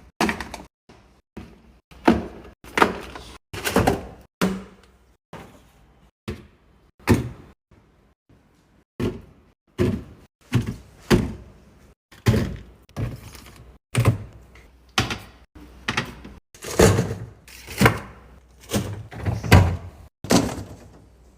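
Restocking a refrigerator: a run of sharp clunks and knocks, roughly one a second, as containers are set down and fridge drawers and doors slide and shut.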